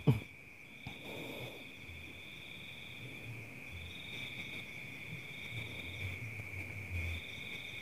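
Crickets trilling steadily in two high pitches, the higher one dropping out and coming back every couple of seconds. A brief faint rustle about a second in, from hands handling a caught bird.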